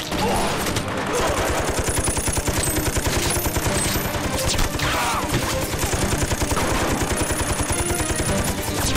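Rapid, continuous gunfire, with many guns firing at once in a sustained exchange of fire.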